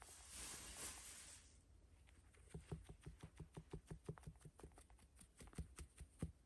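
Newborn rabbit kits stirring in their nest on a towel: a faint rustle, then a run of quick, light ticks, about five or six a second, for several seconds.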